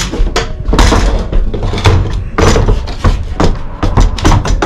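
Steel motorcycle wheel chock being handled and shifted in slotted floor tracking: a quick, irregular run of metal clanks and knocks.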